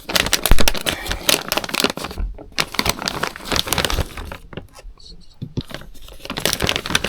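Hands handling small parts: rustling with many irregular sharp clicks and light knocks of plastic and small metal pieces such as washers.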